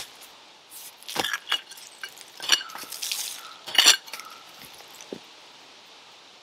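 Steel shovel blade chopping and scraping into stony, root-filled soil, with about four sharp clinks as it strikes rocks.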